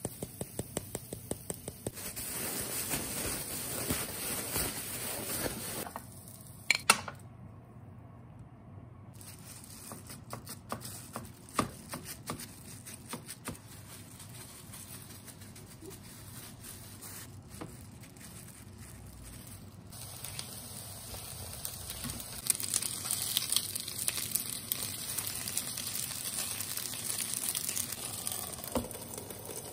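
A plastic bag of sliced pork, cheese and starch crinkling as seasoning is shaken in and the bag is worked to mix it. A few knocks follow. From about two-thirds of the way in, pork patties sizzle steadily with small crackles as they fry in a nonstick frying pan.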